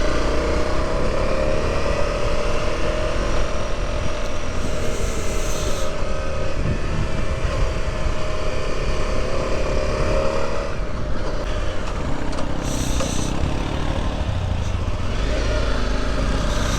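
Motorcycle engine running while riding a rough track, its pitch rising and falling with the throttle, over heavy wind noise on the microphone.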